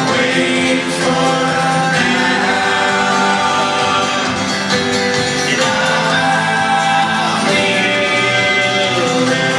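Live folk-rock band heard from the arena seats: a man singing over acoustic guitar, with held notes that shift every second or two.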